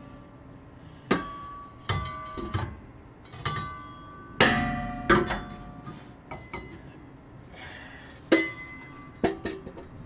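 Irregular metallic clanks and knocks, about a dozen in ten seconds, each followed by a brief ringing: metal parts and hand tools being handled and struck.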